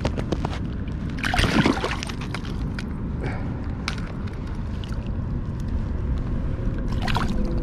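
Rushing river water and sloshing, heard close on a GoPro's microphone as a steady low rumble, with small knocks and splashes; a louder splash about a second and a half in.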